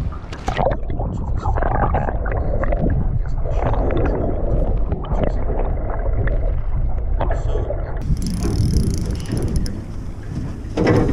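Muffled rushing water and low rumble picked up by a camera under the sea surface. About eight seconds in, the sound opens up into a brighter hiss of wind and water.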